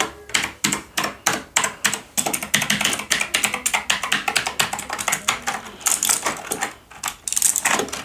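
Fast, uneven typing on a Kmart mechanical keyboard with blue switches: a continuous run of sharp key clicks, several a second.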